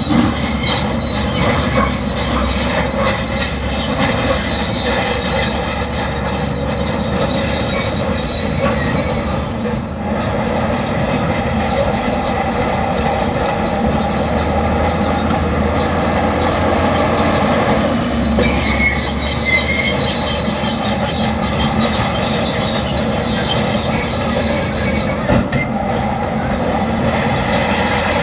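Shantui crawler bulldozer working: its diesel engine runs steadily under load while the steel tracks squeal and clank. The high squeal is stronger a few seconds in and again just past halfway.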